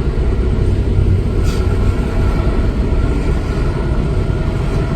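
Cat 330 hydraulic excavator's diesel engine running steadily under load, with a short hiss about a second and a half in.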